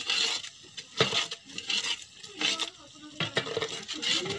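Long metal spatula stirring and scraping a thick spice masala in a large aluminium cooking pot, in irregular strokes with a couple of sharp clinks against the pot, while the masala sizzles as it fries.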